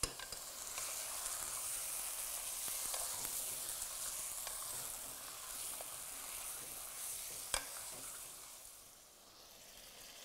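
Marinated mutton sizzling as it hits hot mustard oil and browned onions in a metal pot. The sizzle is steady, then fades away near the end. A single sharp click comes about seven and a half seconds in.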